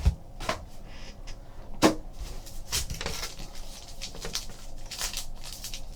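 Trading card boxes and packs being handled on a table: scattered light clicks and knocks, with a sharper knock about two seconds in.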